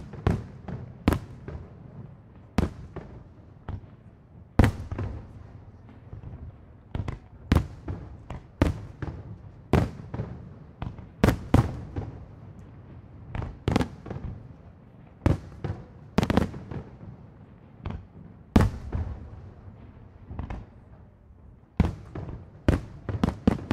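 Aerial firework shells bursting in an irregular string of sharp bangs, roughly one or two a second, each trailing off in a rolling echo over a low rumble.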